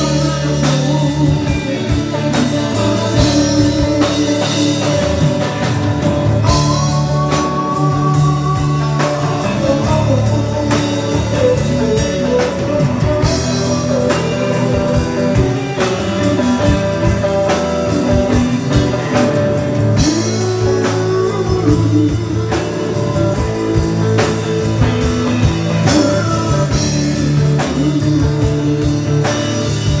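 Live rock band playing: electric guitars over a drum kit, amplified through the stage speakers.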